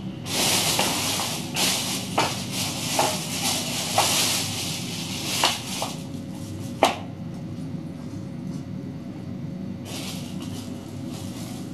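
Thin plastic bag rustling and crinkling as it is handled, with several knocks and clunks as a board and a metal bowl are lifted and set down on a bathroom scale, the sharpest knock about seven seconds in. More rustling of the bag near the end.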